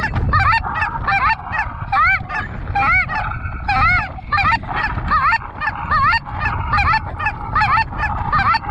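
Goose honking: a fast run of many overlapping honks, each rising and falling in pitch, with wind rumbling on the microphone.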